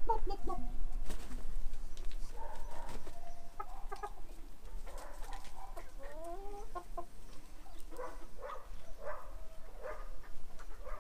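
Hens clucking: a few drawn-out calls rising in pitch, then a run of short clucks near the end.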